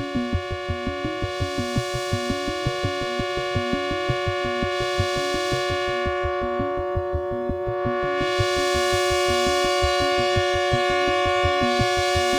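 AE Modular synthesizer playing a sequenced sawtooth line that pulses rapidly and evenly in the low range, under a held pad chord. The filter closes, darkening the sound about six seconds in, and opens again about two seconds later.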